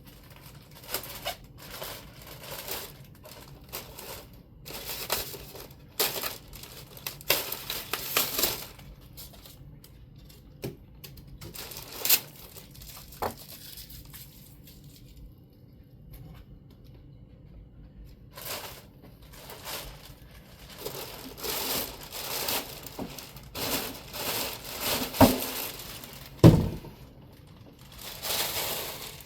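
Packing material crinkling and tearing as it is pulled off a large model aircraft wing, in irregular bursts with a short pause in the middle. A few sharp knocks as the wing is handled.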